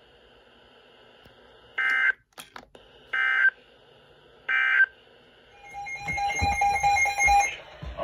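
Weather radio sounding the EAS end-of-message code at the close of a severe thunderstorm warning: three short bursts of screechy data tones, a little over a second apart. Near the end comes a buzzing tone with static, lasting about two seconds.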